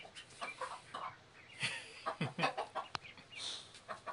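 Mother hen with chicks clucking: a run of short, sharp clucks at an uneven pace.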